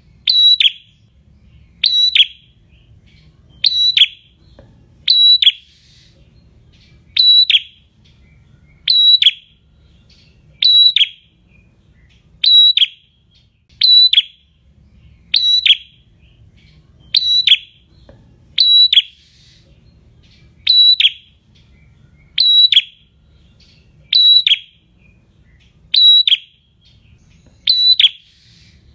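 Caged prenjak singing, repeating a short, loud, high call evenly about every second and a half to two seconds.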